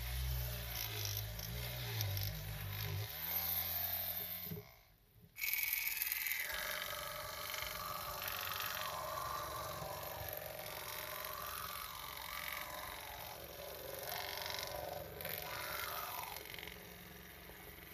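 A miniature rotary scrubbing machine's small motor runs with a low buzz as its brush scrubs a foam-soaked miniature carpet, then the sound cuts out briefly about four and a half seconds in. After that a miniature CRB (counter-rotating brush) carpet machine runs over the wet foam: a wet scrubbing hiss with a wavering motor whine.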